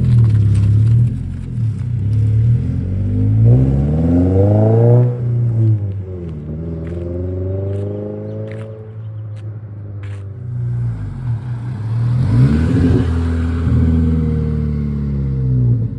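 A 2022 Subaru BRZ's 2.4-litre flat-four engine breathing through a Remark double-wall axle-back exhaust, idling and revved up twice, each time falling back to idle, with a shorter blip near the end.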